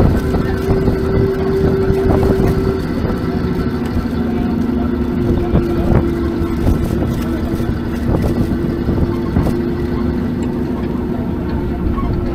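Open-air parking tram driving across a paved lot: a steady rumble of its running gear and tyres with a humming tone whose pitch shifts about four seconds in.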